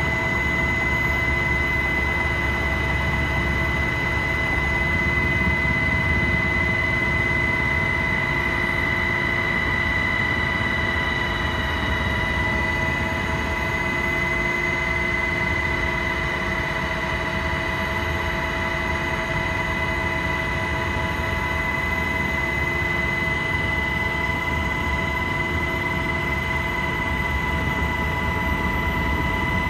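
UH-60 Black Hawk helicopter in flight heard from inside the cabin: its twin turboshaft engines give a steady high-pitched whine, with a few lower steady tones, over a heavy low rotor and engine rumble. The sound holds even throughout.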